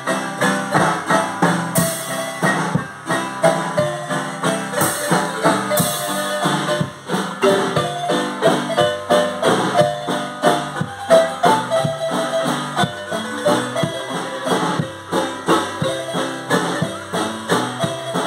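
A marimba band playing lively music on two marimbas: fast, quickly repeated struck wooden-bar notes over a steady beat with drums.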